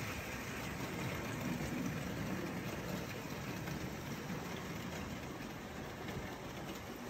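Model train running on the layout's track: a steady rumble of wheels on rail and its small electric motor.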